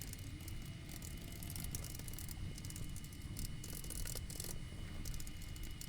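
Typing on a Macintosh keyboard: bursts of quick key clicks with short pauses between them, over the steady low hum of the running computer.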